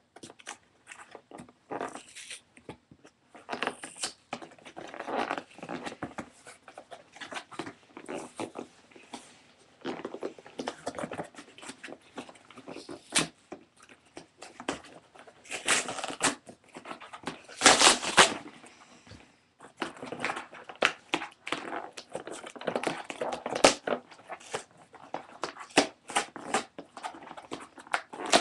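Cardboard box being opened by hand: irregular rustling, scraping and crinkling of the cardboard and packaging, with a louder, longer tearing burst about 18 seconds in.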